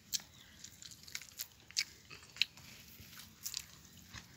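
A person chewing food close to the microphone: a few scattered soft crunches and mouth clicks.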